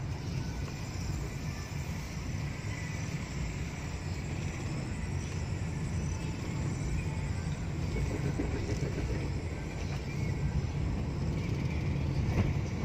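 Car driving, heard from inside its cabin: a steady low rumble of engine and tyre noise.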